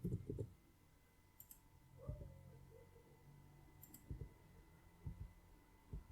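Faint, scattered clicks of a computer being operated at a desk, several of them in quick pairs.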